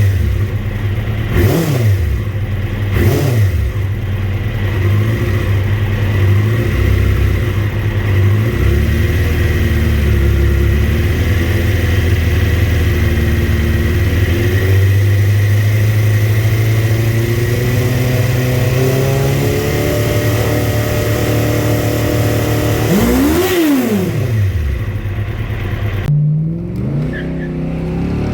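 Motor vehicle engines running and revving, their pitch climbing and falling, with quick rise-and-fall sweeps about a second and a half in, again at three seconds, and near twenty-three seconds, like vehicles passing by at speed.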